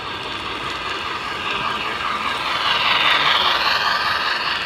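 Model steam locomotive and passenger train rolling past on the track, a steady mechanical running and rattling of wheels and motor that grows louder to a peak about three seconds in as the train passes, then eases a little.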